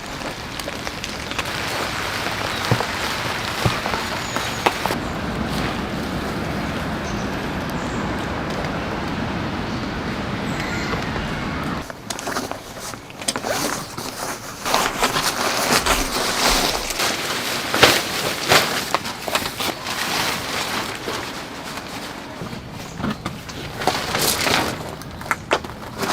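Heavy rain falling steadily as an even hiss for about twelve seconds. Then it changes abruptly to irregular knocks, clicks and rustles over fainter rain.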